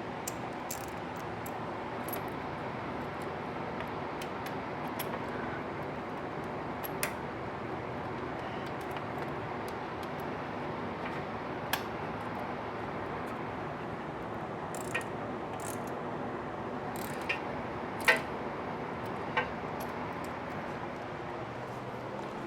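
Steady hiss with a few scattered light clicks and taps, the loudest about three-quarters of the way through, from plastic and metal parts being handled as a motorcycle's battery bracket is fitted back under its radiator guard.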